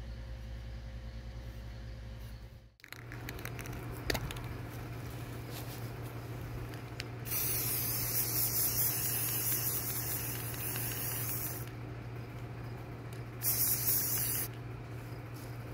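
Aerosol spray-paint can spraying in two hissing bursts: a long one of about four seconds starting about seven seconds in, then a short one of about a second near the end.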